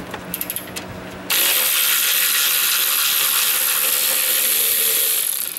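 Power ratchet spinning out a radiator lower-bracket bolt: a few light clicks, then about four seconds of steady whirring that stops suddenly.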